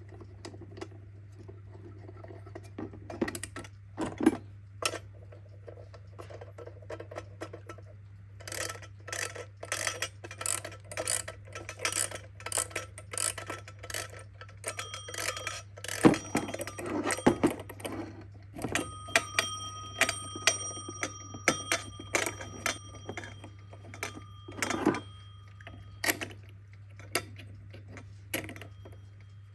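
Kienzle twin-bell alarm clock: clicks and knocks of the clock being handled, then its bells ringing in the second half. The ringing is clearest for about seven seconds and stops a few seconds before the end.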